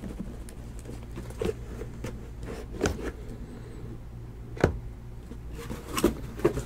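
Sealed cardboard boxes of trading cards being set down and stacked one on another, giving about five short, light knocks over a steady low hum.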